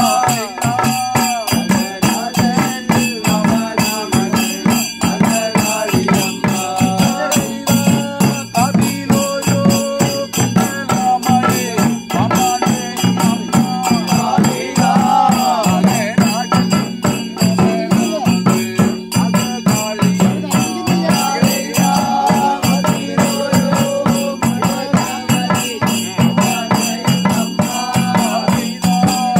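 Several chendas, Kerala's cylindrical stick-beaten drums, playing a rapid, unbroken beat, with a voice chanting the thottam, the invocation song of a theyyam, over the drums.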